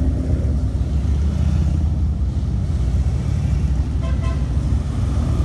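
Motorcycle engines rumbling steadily as a procession of bikes rides slowly past, with a short double horn beep about four seconds in.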